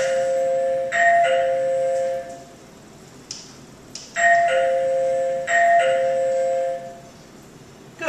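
Plug-in wireless doorbell chime ringing a two-note ding-dong, a higher note then a lower one. It sounds twice in quick succession at the start and twice more about four seconds in.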